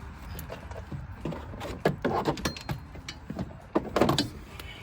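Irregular metallic clinks and knocks of tools and brake parts being handled during a brake job, the loudest about two seconds in and again near the end.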